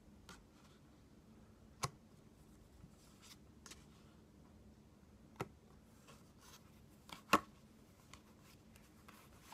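Playing cards being handled and laid down: a few sharp snaps and taps, the loudest about seven seconds in, with soft rustles and ticks between them.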